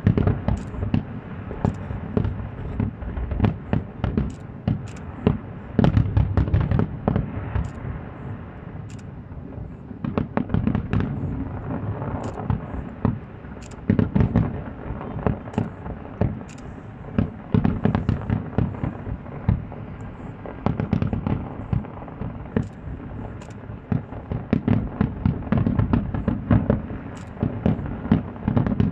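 Fireworks display: many aerial shells bursting in quick succession, sharp bangs often overlapping over a low rumble, thinning out briefly about a third of the way through before building again.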